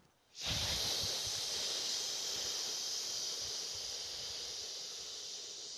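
A man breathing out one long, steady hiss for about six seconds, slowly fading: the triple warmer sound of the Taoist Six Healing Sounds.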